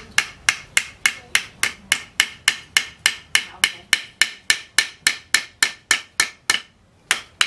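Hammer striking a metal pin in quick, even taps, about three to four a second, peening it to rivet wooden handle scales onto a leaf-spring machete tang on a metal post anvil. There is a short break near the end before the tapping resumes.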